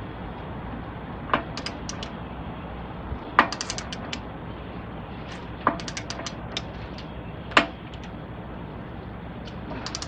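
Long-handled ratchet wrench working the bolts of a fifth-wheel pinbox: about four strokes, each a sharp click followed by a quick run of lighter pawl clicks as the handle swings back.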